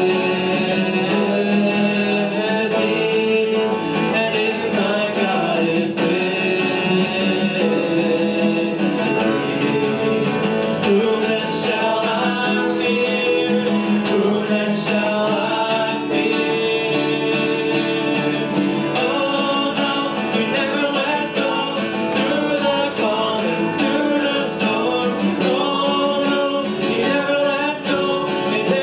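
Worship band playing a contemporary worship song: a lead vocal over a strummed acoustic guitar with keyboard accompaniment, steady throughout.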